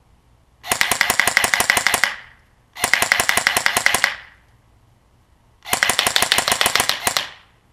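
Elite Force M4 CQB airsoft electric rifle firing three rapid strings of shots, each lasting about one and a half seconds with short pauses between, its version 2 metal gearbox cycling with each shot. This is a test of the micro speed trigger's response.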